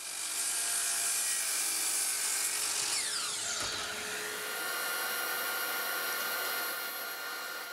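Miter saw cutting the end off a glued plywood block with a loud, high hiss. About three seconds in the blade is let go and its whine falls in pitch as it spins down, leaving a steady high whine.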